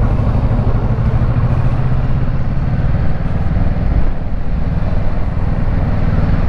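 Kawasaki Versys 650 parallel-twin engine running as the motorcycle rides at low speed through traffic, a steady engine note that wavers a little after a couple of seconds.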